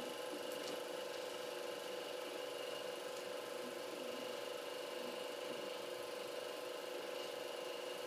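Super 8mm film projector running: a steady mechanical whir with a constant hum.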